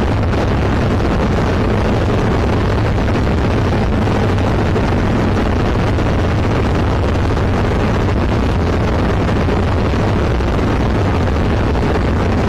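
Zenith CH 701 light aircraft's engine and propeller running steadily in flight, heard inside the cockpit with wind noise from the airflow.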